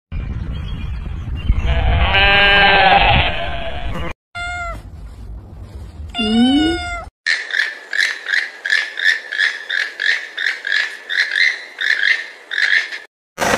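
A black-faced Valais Blacksnose sheep bleats once over outdoor noise. Then a long-haired kitten meows twice, the second meow rising and falling. Last comes a run of short, high, evenly spaced calls at about two a second.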